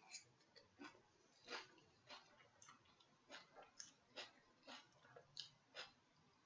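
Faint eating sounds: short, irregular clicks and taps about twice a second, from chewing and a fork working in a small glass dish of dressing.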